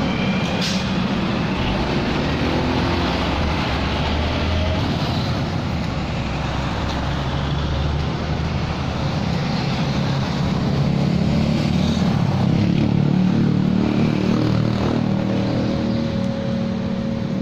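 Road traffic: cars and motorcycles running and passing close by, their engine hum rising somewhat about two-thirds of the way through.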